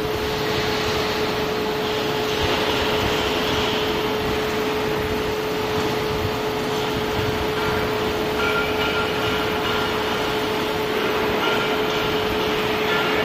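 Steady machinery noise with a constant mid-pitched hum, unchanging throughout.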